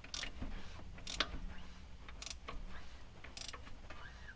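Half-inch-drive ratchet on a 15/16 socket, clicking in short runs as it is swung back and forth to turn the crankshaft of a 5.3 L LS V8 and bring a piston up to top dead center. There are about five separate bursts of clicking over a low steady hum.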